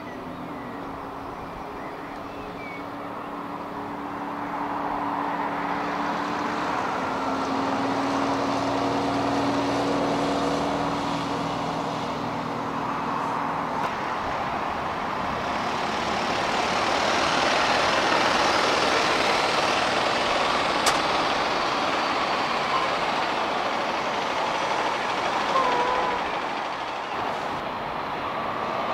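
Diesel buses running through a bus station: a steady low engine hum for the first half, then the noise of engines and tyres swells as buses pass, loudest a little past the middle, with a sharp click about 21 seconds in.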